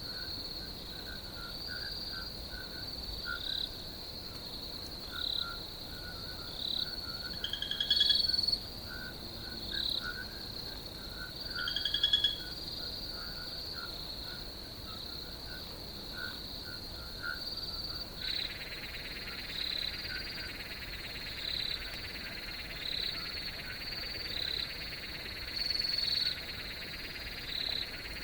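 Night chorus of crickets trilling steadily, with short chirping calls repeating about once a second over it. Two louder calls stand out about 8 and 12 seconds in. A second, buzzier insect chorus joins about two-thirds of the way through.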